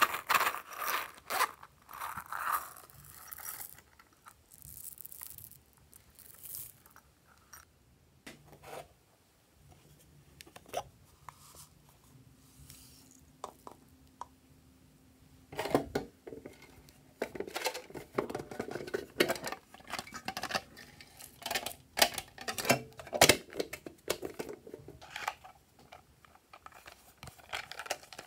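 Small plastic containers being opened, handled and tipped out over slime: irregular clicks, scrapes and crinkles, busiest in the second half with several sharp snaps.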